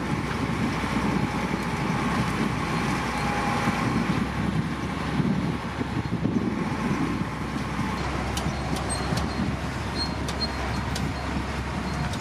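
Heavy diesel earthmoving machinery running steadily with a low engine rumble, and a few light high clicks in the second half.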